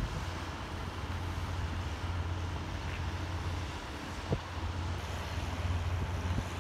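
Diesel engine of a tri-axle dump truck pulling away, a steady low rumble, with a single sharp click about four seconds in.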